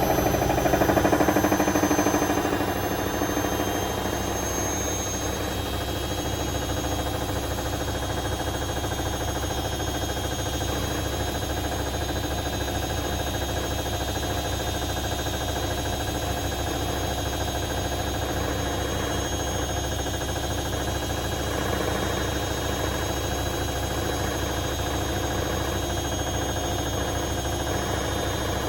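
Bosch WAE24366 washing machine on a spin, the drum turning with a steady rapid rhythmic rumble and vibration, louder for the first two or three seconds before settling. The noise is the sign of a broken drum spider, which the owner found to be the main cause rather than the bearings.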